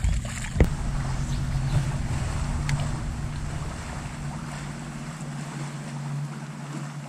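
Bow-mounted electric trolling motor on a bass boat humming steadily, with wind rumbling on the microphone. Two sharp knocks come in the first second.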